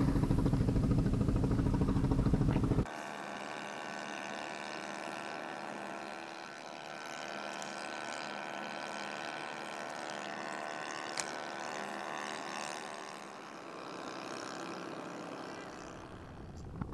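An engine running close by, a heavy low drone that cuts off abruptly about three seconds in. A much quieter steady hum of several held tones is left after it.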